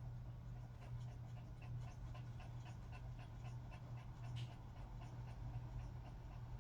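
Elderly poodle panting in quick, even breaths, about three a second.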